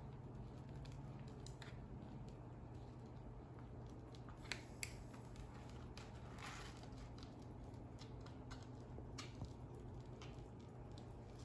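Faint handling sounds of sticky, cream-cheese-spread flour tortilla strips being rolled up by hand: a few soft clicks and a brief rustle over a steady low hum.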